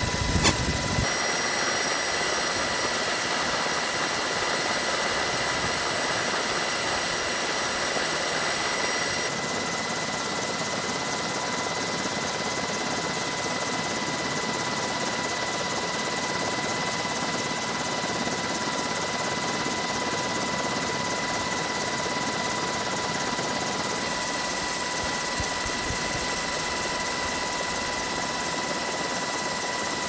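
Steady helicopter noise heard from aboard the aircraft: an even rushing hiss with several steady high whines, its tone shifting slightly a few times.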